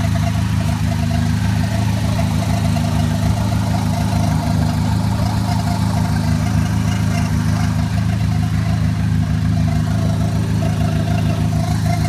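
Chevrolet Cobalt SS's turbocharged four-cylinder engine running steadily after a rebuild, a low even hum with a wavering mid-pitched whine over it: the weird noise the owner is trying to trace.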